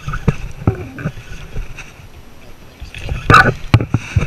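Irregular sharp splashes and knocks at the water's surface, the loudest burst coming about three seconds in, while a bass is worked in on a topwater popper line.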